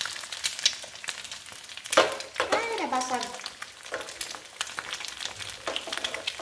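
Egg frying in a little oil in a nonstick frying pan, sizzling with constant rapid crackles and pops. About two seconds in comes one sharp knock, the pan set back down on the gas burner's grate.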